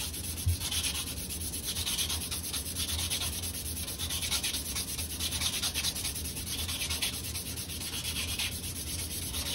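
Emery cloth rubbed rapidly back and forth around a steel air-handler fan shaft, a continuous scratchy rasping of even strokes over a steady low hum: the shaft is being cleaned of rust and roughness so the new pulley bushing will slide on.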